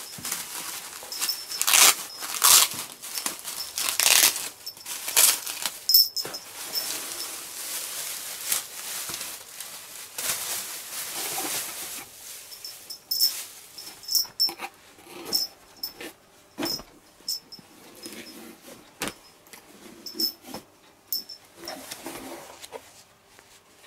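Clear plastic packaging bag crinkling and rustling as it is pulled out of a cardboard box, with many sharp crackles. About halfway through it gives way to quieter handling of cardboard flaps and denim jeans, with scattered light clicks.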